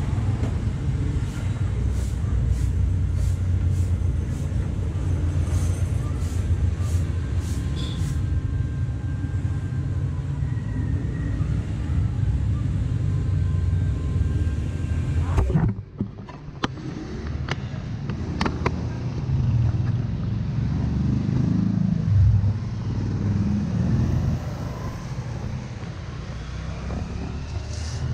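Steady low rumble of passing street traffic, with scattered sharp scrapes and clicks of a broom on concrete. The sound drops out briefly about halfway through.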